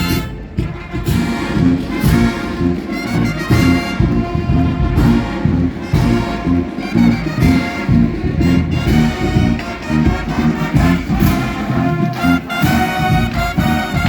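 College marching band playing: full brass section of trumpets and trombones over a steady drum beat.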